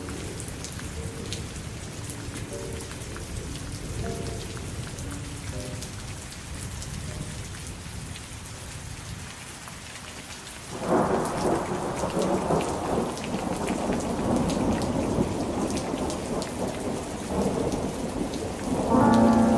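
Steady rain falling, with a long roll of thunder that swells in suddenly about eleven seconds in and rumbles on.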